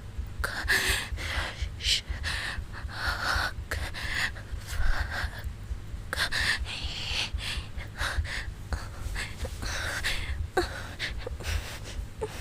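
A woman's heavy breathing: an irregular run of breaths in and out, about one a second.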